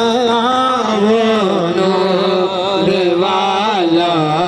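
Man singing an Urdu naat, holding long drawn-out notes that waver in pitch.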